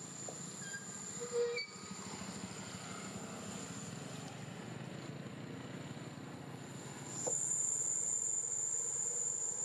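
Steady high-pitched insect buzz over a low rumbling background, the buzz growing louder about seven seconds in.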